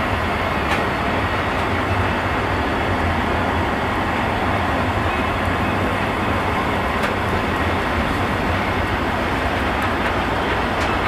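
A freight train of covered bogie wagons rolling past, a steady rumble of wheels on rail with a few light clicks.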